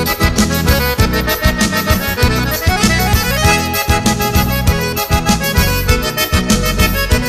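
Instrumental break of a gaúcho vaneira: button accordion (gaita) playing the lead over bass and drums with a steady bouncing dance beat.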